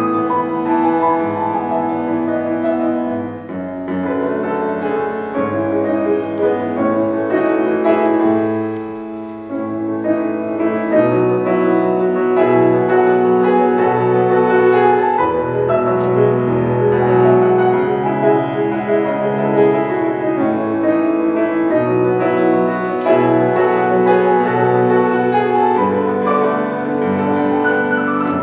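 Solo piano playing a slow, lyrical piece: sustained chords under a melody. It softens briefly about nine seconds in, then comes back fuller.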